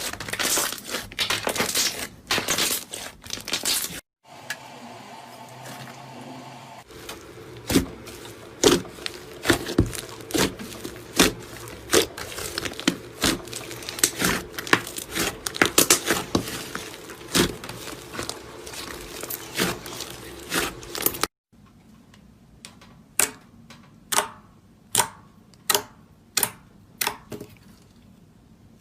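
Slime being squeezed, stretched and poked by hand, giving crisp crackles and sharp pops across several cut-together clips: dense crackling at first, then scattered pops, and near the end single pops about once a second.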